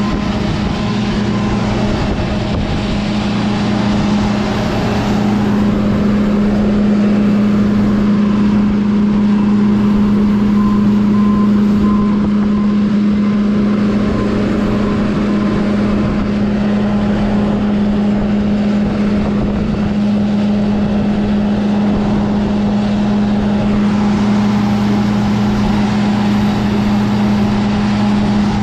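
A vehicle engine running at a steady speed, a constant low hum over an even rumble of motion, with no change through the stretch.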